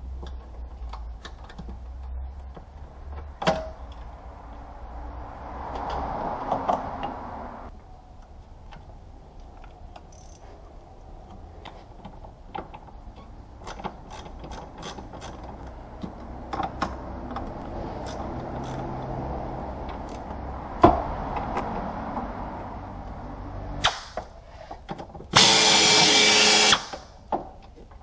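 Scattered clicks and rattles of parts and tools being handled at the car's cowl. Near the end a power tool runs loudly for about a second and a half.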